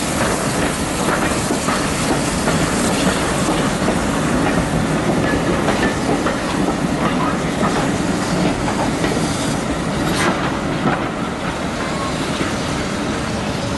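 Steam-hauled passenger train rolling along steadily, with its wheels clicking over the rail joints and a few short squeals from the wheels.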